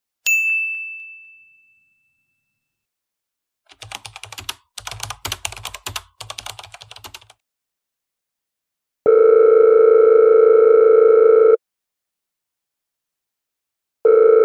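Added sound effects: a single bright ding that rings out, then a few seconds of rapid keyboard-typing clicks. After that comes a steady electronic beep tone held for about two and a half seconds, starting again near the end.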